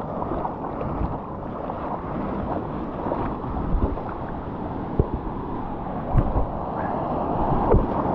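Water sloshing and lapping against a surfboard and its board-level camera, with wind buffeting the microphone and a few sharp splashes in the second half.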